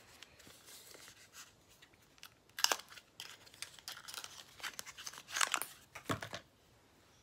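Small cosmetic product packaging being handled and opened by hand: a run of soft rustles and short crinkling, tearing strokes, with the loudest crinkles about two and a half seconds in and again about five and a half seconds in.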